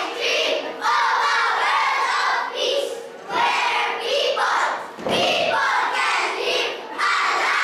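A group of young children reciting a poem in unison, a choral reading, in short phrases with brief breaks between them.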